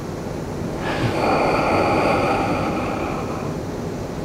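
A man's long audible breath, starting about a second in and lasting a couple of seconds, over a steady background hiss.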